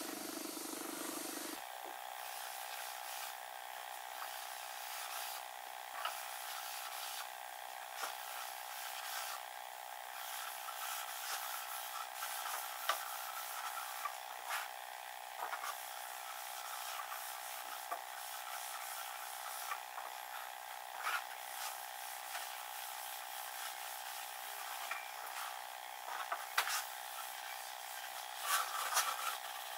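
Hand-held applicator pad rubbing hard wax oil into pallet-board wood: irregular soft wiping strokes and light taps on the boards, over a steady hum that sets in about a second and a half in.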